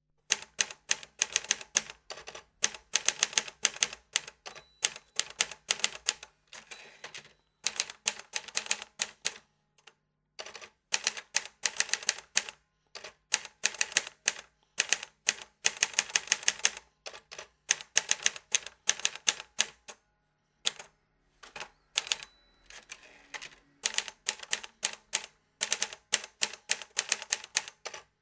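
Typewriter sound effect: rapid runs of mechanical key clacks in bursts broken by short pauses, keeping time with on-screen text being typed out letter by letter.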